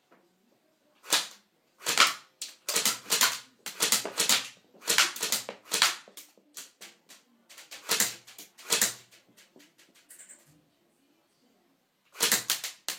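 Electric BB gun firing repeatedly: sharp shots, some single and some in quick runs of several, with a pause of a couple of seconds before two more near the end.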